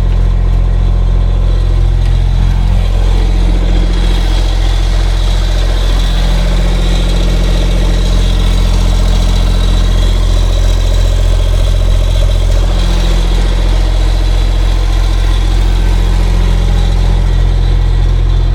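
Mini digger's diesel engine running steadily while it digs out a trench, its note shifting a few times as it works.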